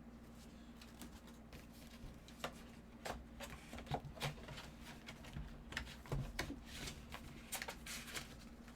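Light rustling and scattered clicks of autographed 8x10 photos being handled, starting about two seconds in, over a steady low hum.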